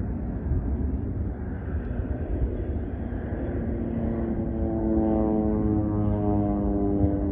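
Single-engine propeller plane flying low overhead: a droning propeller hum of several steady tones grows in about halfway through, over a constant low rumble.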